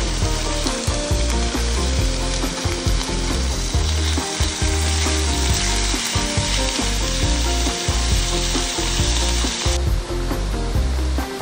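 Food frying and sizzling in a hot pan, a steady hiss that cuts off suddenly near the end, with background music underneath.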